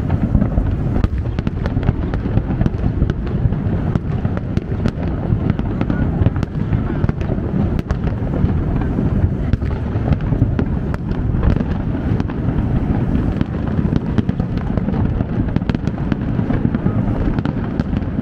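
Aerial fireworks display going off in a continuous dense barrage: a steady rumble of low booms with many sharp cracks and pops mixed through it.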